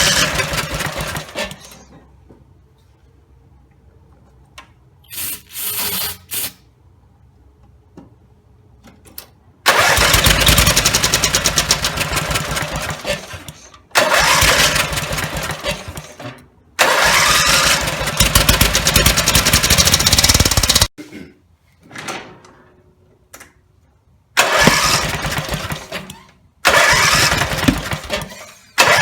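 Briggs & Stratton 17 hp riding-mower engine started again and again. Each time it fires and runs for a few seconds, then dies or cuts off, and there is a long quiet gap before the run near the ten-second mark. After a full rebuild it will not keep running at idle, which the owner puts down to the throttle linkage.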